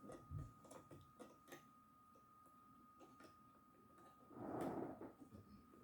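Faint scattered clicks and taps of small plastic toy parts being handled while a rubber drive belt is worked onto its pulleys, with a soft thump about half a second in and a brief rustle near the end.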